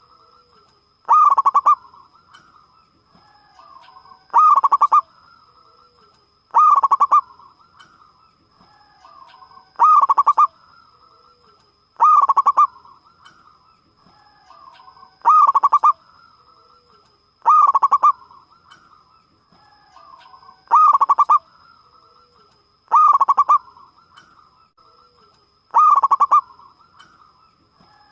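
Zebra dove (perkutut) singing. A loud cooing call comes again about every two and a half seconds, with softer cooing between the calls.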